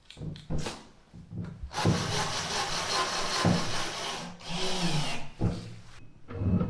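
Scraping and rubbing noise as a screw is fitted into the washing machine during a repair: a few short scrapes, then a longer rasping stretch from about two seconds in until about five seconds in.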